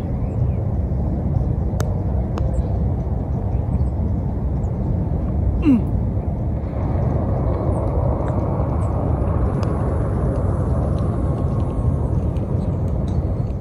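Isao Aoki putter striking a golf ball once with a sharp click about two seconds in, over a steady low outdoor rumble. A brief falling vocal sound comes near six seconds.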